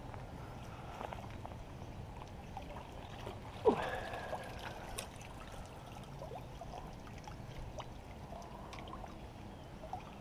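Water splashing and trickling as a hooked catfish is landed in a landing net, with one sudden loud splash about three and a half seconds in, then scattered small clicks and drips.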